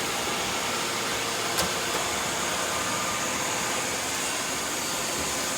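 Robot vacuum running with a steady whir and a faint high whine, with a single short click about a second and a half in.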